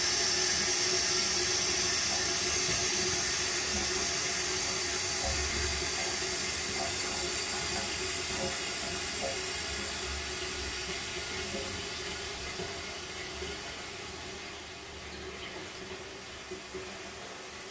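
Toilet flush water running through the pan and pipework as a steady hiss that slowly fades away.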